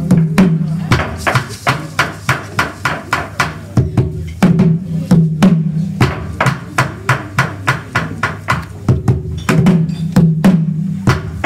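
A live West African drum ensemble playing a fast Agbekor rhythm: sharp hand-drum strokes at about four a second over deeper, booming drum tones.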